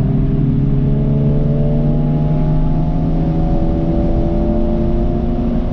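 Toyota GR86's 2.4-litre flat-four engine with the GR exhaust, pulling under load, its note climbing gradually as the car accelerates, over steady road and tyre noise.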